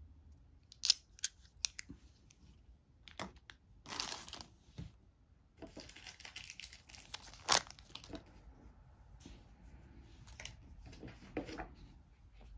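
Hands handling board game pieces: a few sharp clicks as dice and components are set down, with crinkling plastic rustles between them.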